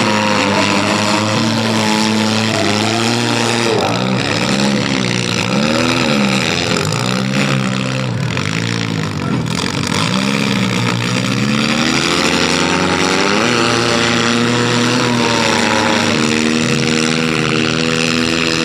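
Several demolition derby cars' engines revving up and down over one another, their pitch rising and falling every second or two.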